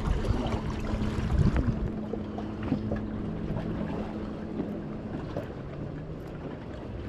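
Wind buffeting the microphone over open lake water, heaviest in the first two seconds. Under it runs a steady low boat-motor hum whose pitch steps down about midway.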